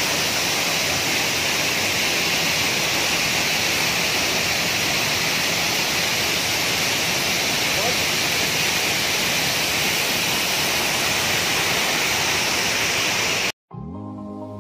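Steady rush of a waterfall pouring over rock. It cuts off suddenly near the end, and soft background music with long held notes comes in.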